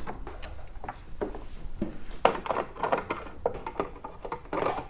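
Scattered clicks and knocks of hands working loose battery cable connections, then a screwdriver on the plastic cover of a busbar box, with a short scraping rustle near the end as the cover comes off.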